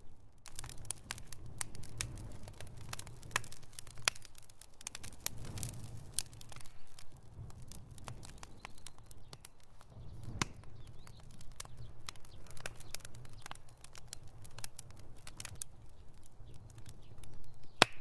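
Bonfire of split wood logs crackling, with many irregular sharp pops over a steady low rumble. The loudest pop comes near the end.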